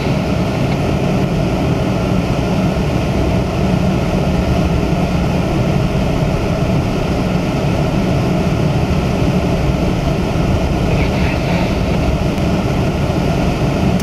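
Steady rumble inside a car's cabin while driving slowly along a snow-covered street: engine and tyre noise.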